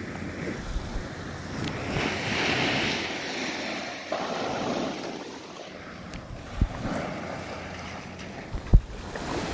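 Waves washing in on a beach, swelling and falling, with wind on the microphone. Two sharp thumps come late, the second the loudest sound.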